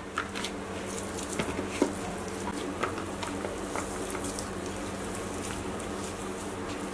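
Boiled potatoes being broken apart by hand in a plastic tub: faint soft squishes and light taps of potato pieces dropping into the tub, over a steady low hum.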